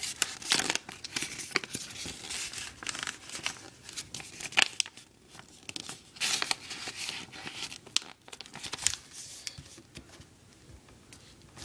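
A sheet of printer paper handled and folded by hand, rustling and crinkling in irregular bursts with sharp crackles as the folds are pressed and creased. It grows quieter near the end.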